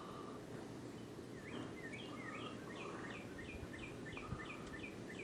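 A songbird singing a long run of quick, repeated falling chirps, starting about a second and a half in, over a steady outdoor background hiss.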